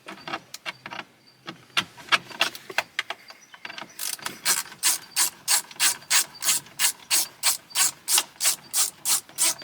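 Hand ratchet clicking as it backs out the screws that hold the radio head unit in the dash. The clicks are irregular at first, then settle into a steady run of about three a second from about four seconds in.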